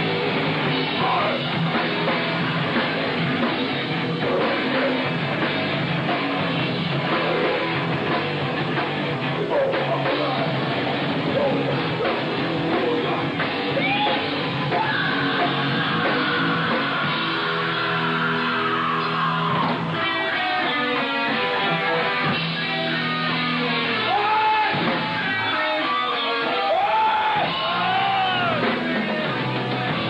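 Thrash metal band playing live: distorted electric guitars over a drum kit, sounding dull with no treble. About halfway through, a high held note slides slowly downward.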